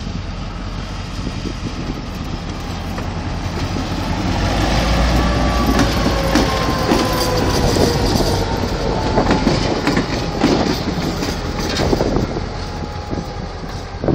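Old diesel locomotive rolling slowly past close by, its engine rumble swelling as it draws level. Midway a thin tone slides down in pitch, then the wheels clack over rail joints.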